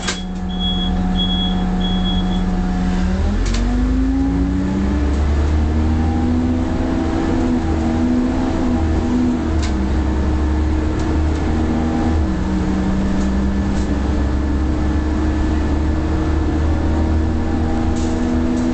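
Leyland Olympian 11-metre double-decker bus's diesel engine running as the bus drives, heard from inside near the front. Its pitch rises about three and a half seconds in and shifts up and down several times as it works through the gears. A repeated high beep sounds during the first two seconds.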